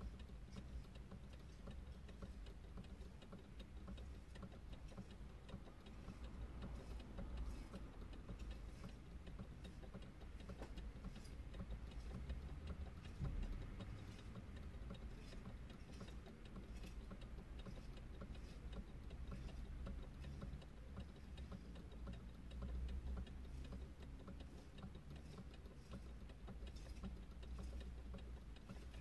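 Faint ticking over a low steady rumble, heard inside a parked car.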